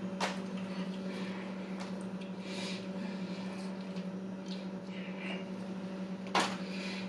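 Close-miked eating sounds: soft chewing and mouth noises, with two sharp clicks, one just after the start and one near the end, over a steady low hum.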